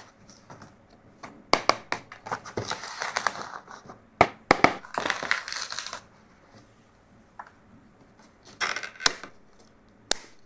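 Small plastic toys and packaging being handled: sharp clicks and knocks mixed with short bursts of rustling, in three separate spells with quiet gaps between them.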